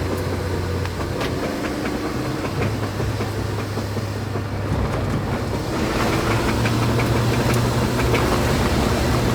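A car wheel with loose wheel nuts clicking rhythmically as the car drives, over engine and road hum. The clicks quicken and grow louder about six seconds in as the car speeds up. The sound is a warning that the wheel is working loose and may come off.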